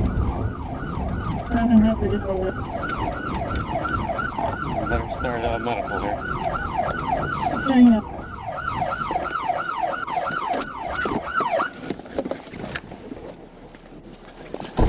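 Police cruiser's siren wailing in fast yelp mode, about three rising-falling sweeps a second, stopping about twelve seconds in, over the low rumble of the car. Two brief, louder low blasts come about two and eight seconds in.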